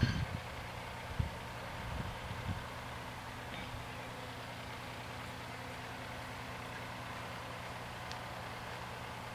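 A vehicle engine idling steadily, with a few dull low thumps in the first three seconds.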